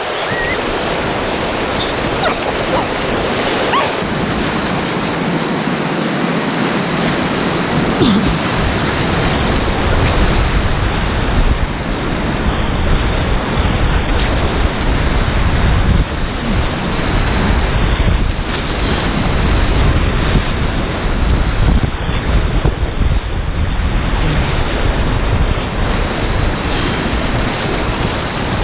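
Whitewater rapids rushing loudly around a kayak, with water splashing over the bow, and wind buffeting the microphone in uneven gusts.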